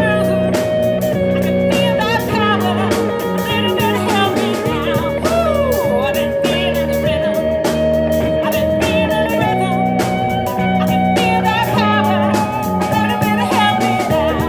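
A band playing an instrumental passage: drums keeping a steady beat under bass and long held melody notes, with guitar.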